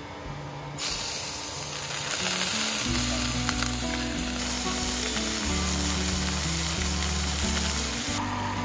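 Raw beef pieces dropped into hot oil in a frying pan, starting to sizzle loudly and suddenly about a second in; the steady sizzle eases a little near the end.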